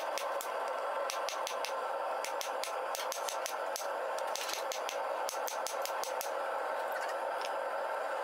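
Steady rushing noise of a running forge, with light, irregular crackling and ticking from the glowing bloom-steel billet as scale flakes off it on the anvil.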